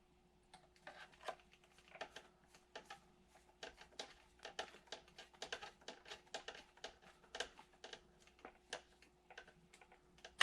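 Faint, irregular light clicks and ticks of a small screwdriver working a tiny screw back into a plastic RC differential yoke and drive shaft, several a second, over a faint steady hum.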